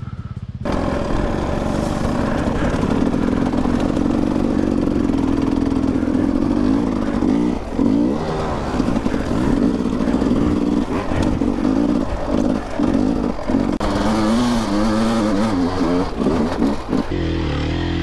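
A two-stroke dirt bike engine, the rider's Sherco 300, revving and pulling on a rocky trail, the throttle opened and closed over and over with brief drops between. About a second before the end it settles to a steadier, lower running.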